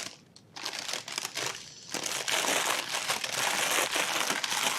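Packaging crinkling as it is handled and unwrapped from a boxed camera: a few scattered crackles at first, then continuous dense crinkling from about two seconds in.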